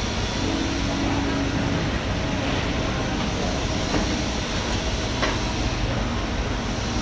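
A steady loud rumbling background noise, with a single sharp knock about five seconds in.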